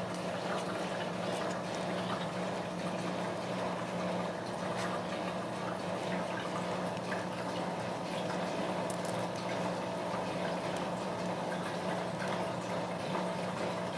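Newborn Ragdoll kittens nursing: soft, wet suckling clicks over a steady low hum.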